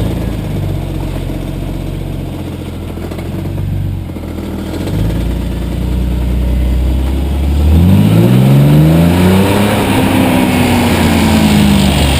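BMW 330i's straight-six engine pulling the car along at steady low revs, then accelerating hard about eight seconds in, the revs climbing quickly and holding high.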